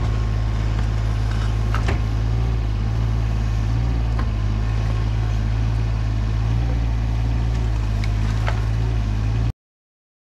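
Yanmar SV17 mini excavator's three-cylinder diesel engine running steadily, with a few short metallic clanks. The sound cuts off suddenly near the end.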